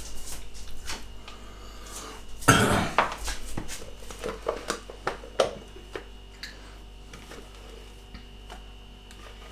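Metal spoon scraping whipped cream out of a bowl into a stainless steel saucepan, with clinks and scrapes against the bowl and pan. The loudest knock comes about two and a half seconds in, and the clinks thin out in the second half.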